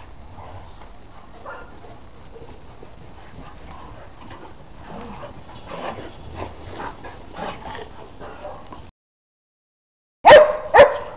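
Dogs playing in snow, a faint jumble of scuffling and small yips; the sound cuts out, then a dog barks twice, loudly, near the end.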